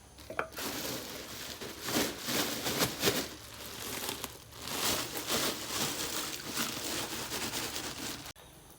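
Dense rustling and crinkling, irregular crackles that start just after the beginning and cut off suddenly near the end.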